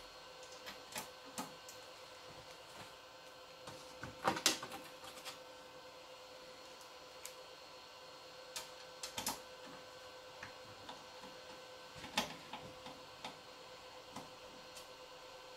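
Scattered light clicks and taps of a screwdriver and screws being worked out of a crypto miner's metal casing, with a louder cluster of knocks about four seconds in and another about twelve seconds in.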